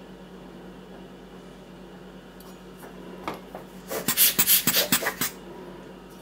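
A rubber hand blower bulb squeezed again and again, giving a quick series of short hissing puffs of air at a mushroom to blow dirt off it. The puffs start about three seconds in and last about two seconds.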